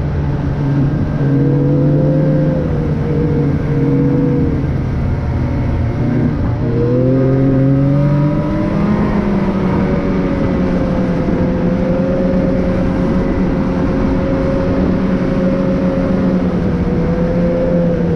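A motor vehicle's engine running under way with road noise. Its pitch shifts several times as it speeds up and changes gear.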